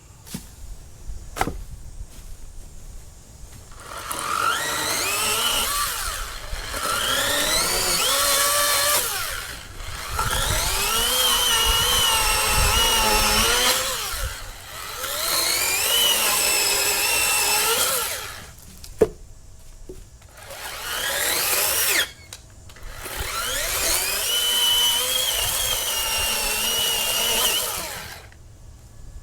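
Greenworks 40V brushless cordless chainsaw run in five bursts of a few seconds each, its electric motor whine rising as it spins up and wavering in pitch as the chain cuts wood. Sharp clicks fall in the gaps between runs.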